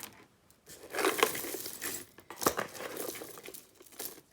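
Pieces of costume jewelry clinking against each other amid rustling handling noise as they are rummaged through, with a few sharp clinks.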